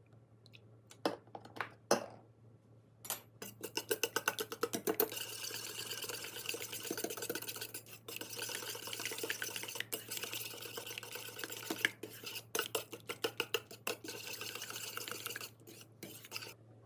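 Eggs being beaten in a bowl: a few taps, then about three seconds in a utensil starts clicking rapidly and steadily against the bowl, stopping shortly before the end.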